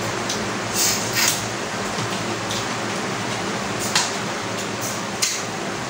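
Cutlery and dishes clinking a few times over a steady hiss, with the sharpest clink about four seconds in.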